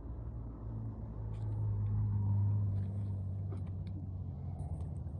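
Low vehicle hum that swells about two seconds in and then fades, with a few faint clicks over it.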